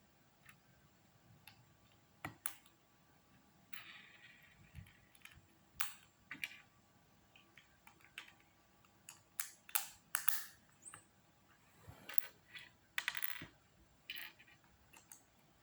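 Lego Technic plastic pieces being handled and pressed together: scattered sharp clicks and short rattles at irregular intervals.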